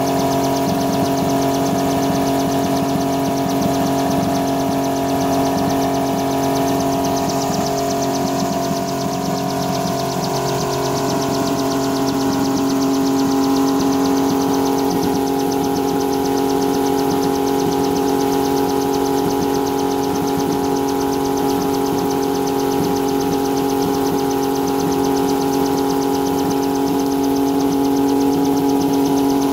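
MH-1 helicopter's engine and main rotor running steadily on the ground, a continuous mechanical drone at constant pitch, with the rotor turning at speed for a blade track check.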